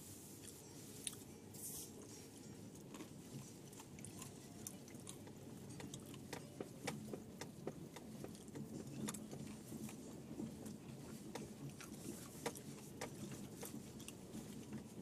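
Cabin sound of a 2010 Subaru Forester driving slowly over a rough, snow-patched farm field: a faint, steady low rumble with irregular light clicks and crackles, more frequent after the first few seconds.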